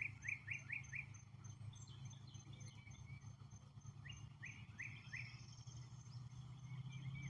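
A songbird calling in quick runs of repeated slurred notes, about four a second: one run ends about a second in and another comes about four seconds in. A steady low hum lies underneath.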